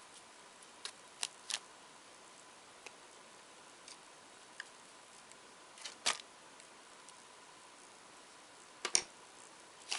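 Quiet handling of a glass jar while glue-varnish is brushed onto it: a few scattered light clicks and taps, the sharpest about six and nine seconds in, over faint room hiss.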